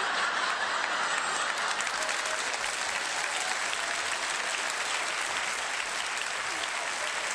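Live audience applauding steadily, a dense crackle of many hands clapping that eases slightly near the end.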